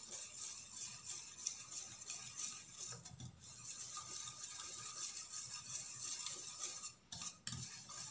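Stirring a runny cake batter in a stainless steel bowl, the utensil scraping and clinking against the bowl, with brief pauses about three seconds in and about seven seconds in.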